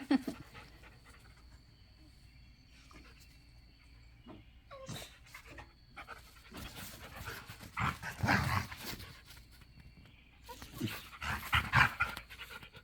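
Dogs panting and making rough sounds as they play, in short irregular bursts that are loudest about eight seconds in and again near the end.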